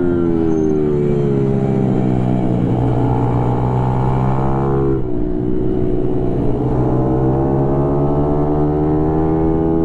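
Mini motorcycle's small engine running hard, heard from on board: its pitch sags slightly through a corner, drops abruptly about halfway through, then climbs steadily as the bike accelerates.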